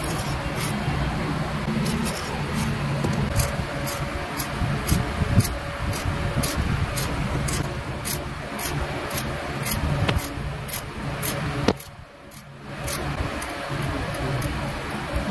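A small hand blade scraping and engraving the lacquer coat of a turned wooden piece, in short even strokes about two to three a second, over a steady low machine hum. The sound drops away briefly about twelve seconds in.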